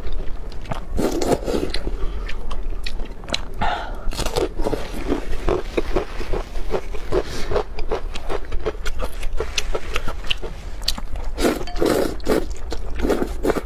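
Close-miked noodle slurping and chewing: many wet mouth clicks and smacks, with louder slurps of noodles about a second in, a few seconds later, and again near the end.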